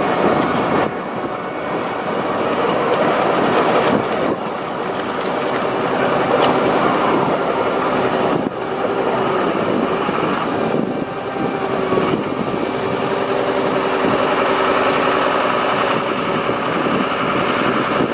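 Diesel engines of heavy machinery running continuously, as used to recover a forwarder stuck in wet peat.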